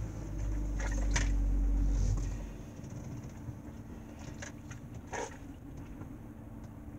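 Car-interior background: a low rumble for the first two seconds or so, then a faint steady hum with a few small clicks and taps.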